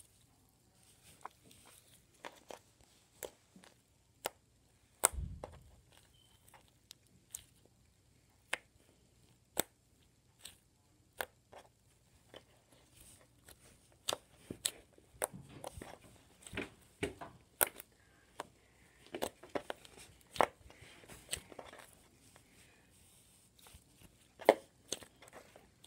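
Hard slime being kneaded and squished by hand while soap is worked in to soften it, giving irregular sharp clicks and pops. There is one dull thump about five seconds in, and the clicks come thicker in the middle of the stretch.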